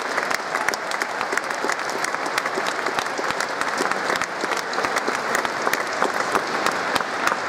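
Large audience applauding steadily: many hands clapping at once in a dense, even patter.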